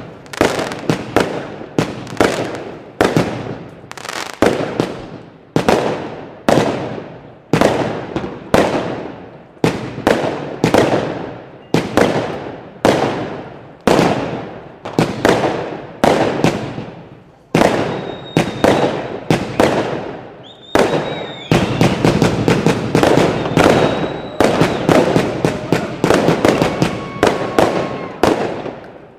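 Aerial fireworks going off in a fast, regular sequence, a sharp bang about every three-quarters of a second, each trailing off in a fading crackle. A couple of high whistles come through past the middle. In the last quarter the shots come closer together into an almost continuous barrage.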